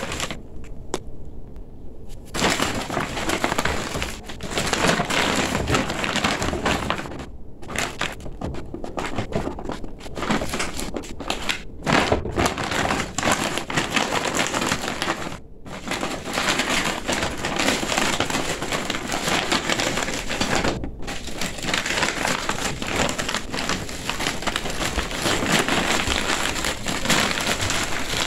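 Gele head-tie fabric crinkling and rustling as hands fold, pleat and tuck it, with a few brief pauses. Quieter for the first two seconds or so.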